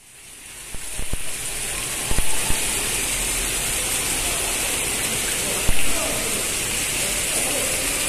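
Indoor water fountain jets splashing into a pool, a steady rushing hiss of falling water that fades in over the first couple of seconds. A few sharp knocks stand out along the way.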